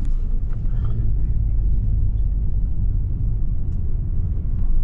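Double-decker coach on the move, heard from inside the cabin: a steady low rumble of engine and road noise.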